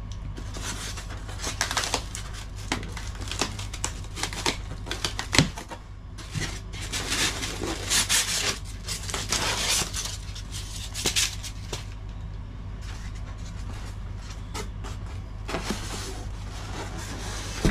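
Polystyrene foam packaging being handled while unboxing an RC boat: rubbing, rustling and clicks as foam inserts and parts are lifted out of the foam box, with a sharp knock about five seconds in. A steady low hum runs underneath.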